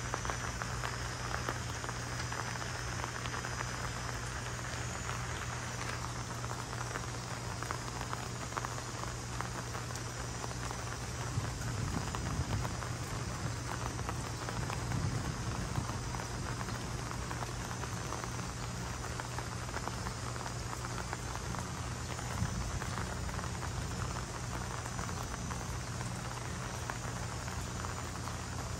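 Steady rain falling, with a steady low hum underneath and a low rumble that swells a little about twelve to fifteen seconds in.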